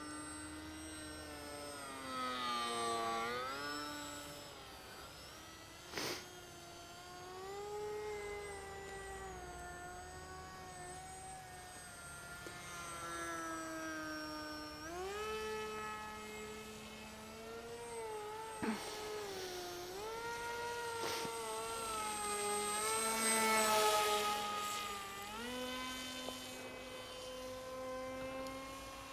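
Electric motor and APC 6x4 pusher propeller of a Bixler RC plane whining in flight, the pitch rising and falling with the throttle. A few short sharp clicks cut through, the first about six seconds in.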